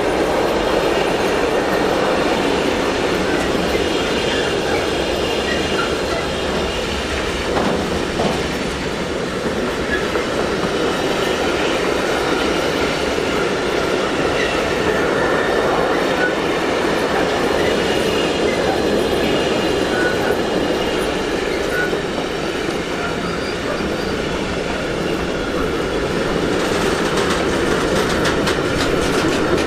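A train running past on the tracks: a steady rumble of wheels on rail with faint high wheel squeal, and a quick run of clacking over rail joints near the end.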